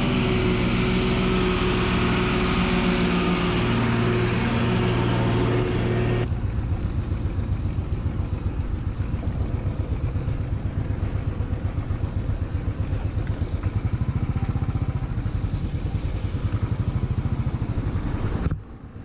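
Royal Enfield single-cylinder motorcycle engine. For about six seconds it runs with a steady engine hum while stopped by a truck. Then it rides on slowly through mud with a regular pulsing exhaust beat.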